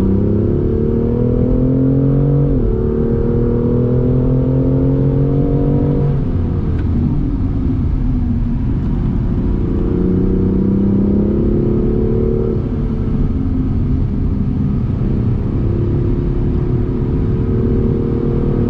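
BMW M2 CS's twin-turbo straight-six heard from inside the cabin, driven hard on track. Its pitch climbs under acceleration, drops at an upshift about two and a half seconds in and climbs again. It falls away as the car slows around six to nine seconds in, then pulls up through the revs once more, with another upshift just past halfway and a steady pull to the end.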